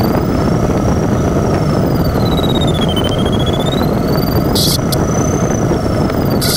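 Steady rush of airflow around the canopy of an LS4B sailplane in a steep turn. Over it, a thin electronic tone, typical of a glider's audio variometer, slides slowly up and down in pitch. A couple of short hissy bursts come near the end.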